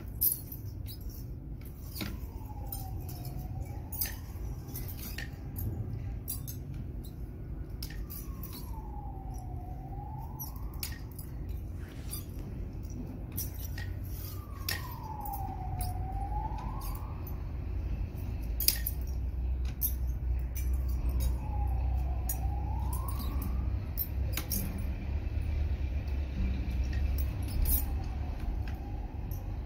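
A siren-like wail that slides down and back up in pitch about every six seconds, five times over, with scattered sharp metallic clicks and a low steady rumble underneath.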